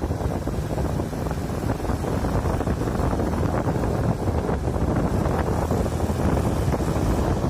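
Wind rushing and buffeting the microphone from a moving vehicle, with a steady low road and engine rumble underneath.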